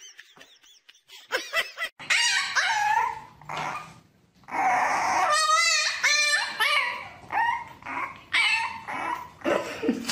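A dog yipping, barking and whining in a run of short high calls, with one drawn-out wavering whine about halfway through.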